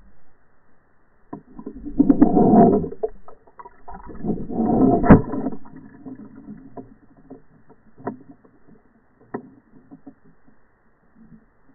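Slowed-down sound from a towed underwater fishing camera: two bursts of low rushing, knocking noise about two seconds and four to five seconds in, the second ending in a sharp knock, then only scattered faint clicks as the trout strikes the spoon.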